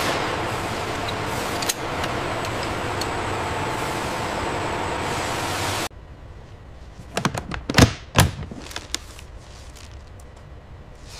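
Steady factory machinery noise that cuts off abruptly, followed by a quick cluster of sharp clicks and thunks, two of them loudest: the latches of a hard plastic equipment case snapping open and its lid being lifted.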